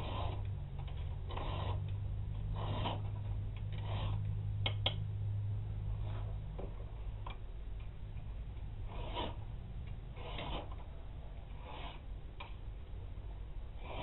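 Round file rasping across the steel spine of a balisong blade in a vise, cutting rope-pattern filework notches: even hand strokes about one every second and a quarter, fewer and fainter for a few seconds in the middle, where there are two sharp clicks. A low steady hum lies under it.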